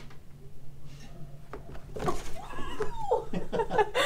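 A woman laughing near the end, just after one long cry that rises and then falls in pitch, over a low steady hum.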